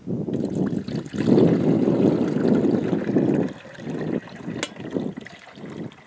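Water poured from a stainless steel carafe into the reservoir of a Coleman propane drip coffee maker, over gusty wind noise on the microphone. The sound is louder for the first three and a half seconds, then patchier.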